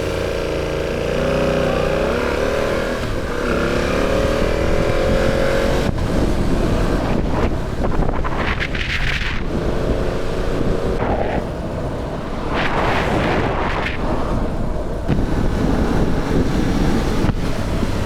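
Motorcycle engine running under way, its pitch rising and falling as the rider accelerates and changes gear, over steady wind rush. The rushing noise swells louder twice.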